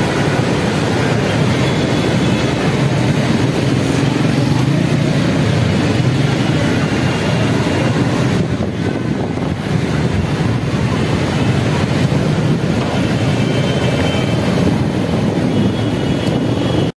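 Street traffic driving through a flooded road: the engines of motorcycles, auto-rickshaws and a small pickup running, with tyres swishing through standing water. The sound is steady and loud, easing briefly a little past the middle.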